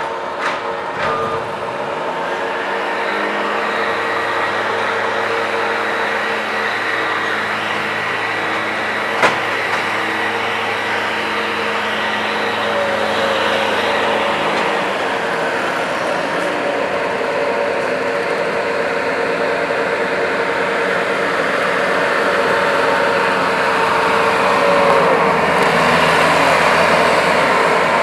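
Skid steer loader's engine running steadily as the machine works, with a few sharp knocks near the start and one about nine seconds in.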